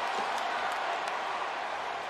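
Large arena crowd noise: a steady din of cheering and chatter with scattered claps.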